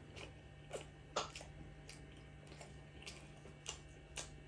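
Close-miked chewing of a large crispy fried chicken burger: a handful of sharp, irregular crunching clicks, the loudest about a second in, over a faint steady low hum.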